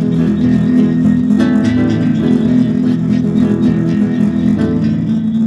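Kremona F65 nylon-string classical guitar being plucked with its HyVibe System-1 ECHO effect sounding through the guitar body, a steady low drone holding under the notes. This is the ECHO effect in the state the owner calls awful, before its fix.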